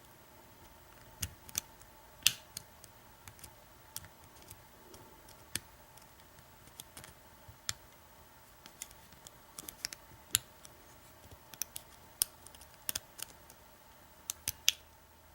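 Hook pick working the pin stack of an American 1100 padlock under tension, giving irregular small metallic clicks and ticks as the pins are pushed up and set.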